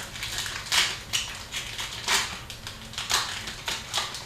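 Foil wrapper of a hockey trading-card pack crinkling and tearing as it is opened, in a run of irregular sharp crackles.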